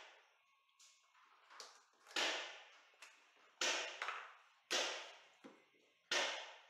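Luxury vinyl plank flooring being cut and handled: four sharp clacks about a second and a half apart, each fading quickly.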